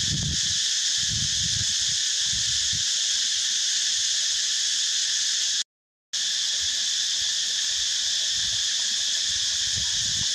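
Steady insect chorus, a high shrill hiss, with irregular low rumbles beneath it; the sound cuts out completely for a moment a little past halfway.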